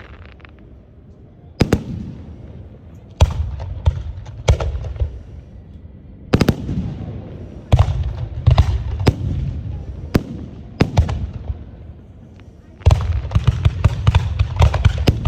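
Aerial firework shells bursting overhead: sharp booms one to two seconds apart, each trailing off in a low rumbling echo. Near the end comes a quick barrage of many bangs in close succession.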